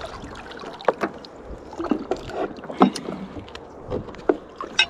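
A rope and a weed-covered metal anchor being hauled out of the water and into a small boat: irregular knocks and clunks as they come aboard, the loudest about three seconds in and just before the end.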